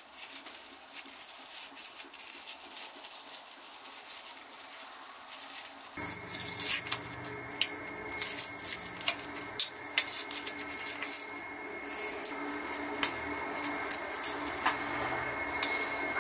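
A paper towel rubbing over polished steel tongs, then, after a cut, repeated short crackling and scraping as fingers pick and peel brittle orange flakes off the steel tongs' joint.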